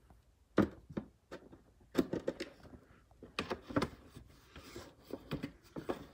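Irregular light clicks and knocks of handling close to the microphone, a few sharp taps scattered among softer rustles.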